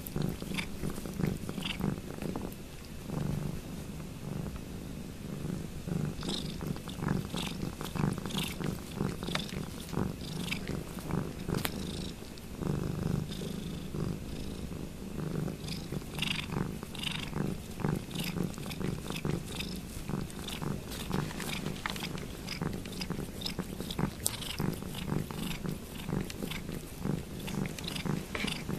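Domestic cat purring noisily and steadily while it licks another cat's paw, with runs of short wet slurps from the licking over the purr.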